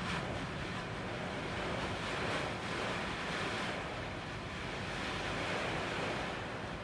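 Steady rushing noise of a torrential downpour and running water, swelling and easing a little.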